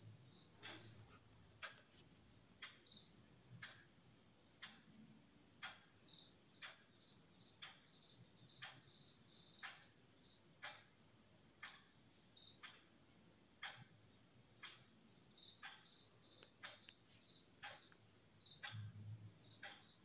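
Faint clock ticking at about one tick a second, with a few extra clicks in between.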